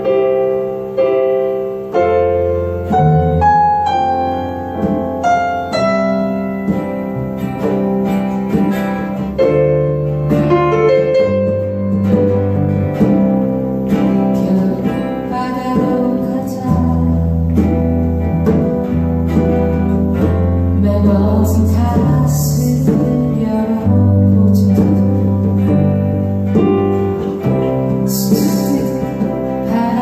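Live band music: a piano-sounding keyboard melody over electric bass, guitar and a djembe, with held notes and a moving bass line. A brief hiss, like a cymbal or shaker, sounds twice in the second half.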